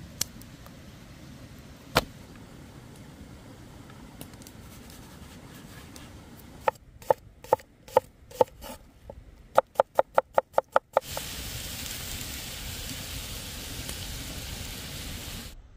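A knife chopping an onion on a wooden board: a run of sharp chops, a few spaced and then about ten in quick succession. Then a cast-iron pan of tomatoes and onion sizzling steadily over the fire until it cuts off near the end. Before the chopping, only a low steady background with a couple of light clicks.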